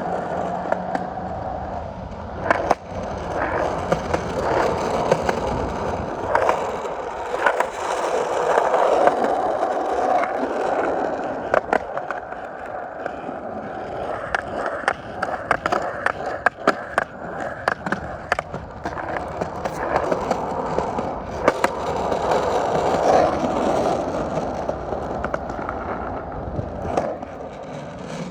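Skate wheels rolling steadily over pavement, a continuous rumble broken by frequent sharp clicks and knocks.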